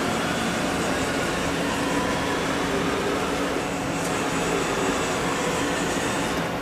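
Haas VF3 vertical machining center traversing its table along the X axis: a steady mechanical hum with a faint whine from the axis servo drive and ball screw.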